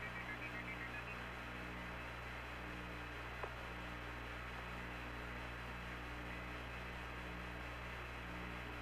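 Steady low electrical hum and faint hiss on the Apollo air-to-ground radio link between transmissions. A faint low tone pulses on and off about once a second, and there is one small click about three and a half seconds in.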